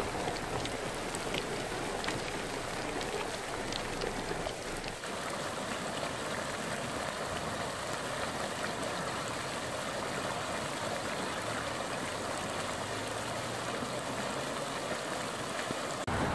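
Heavy desert rain falling steadily, an even hiss with faint scattered drop ticks.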